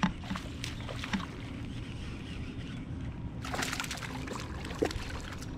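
A hooked largemouth bass thrashing and splashing at the surface beside the kayak, a brief burst of splashing about three and a half seconds in, while the angler reels it in. A few clicks and knocks from the baitcasting reel and rod handling come at the start, with one more just after the splash.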